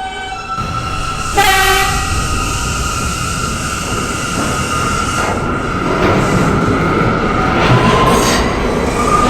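R179 subway train pulling out of a station, its traction motors giving a steady whine over wheel and rail noise. A brief tone with overtones sounds about a second and a half in, and near the end a second whine rises in pitch as the train gathers speed.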